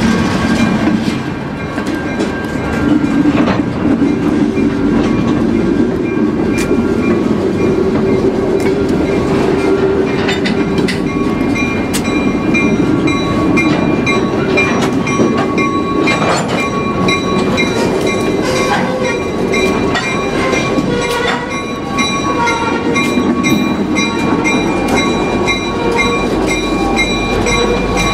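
A train rolling along the track: a steady rumble with repeated sharp clicks of wheels passing over rail joints, joined by thin steady high tones in the second half.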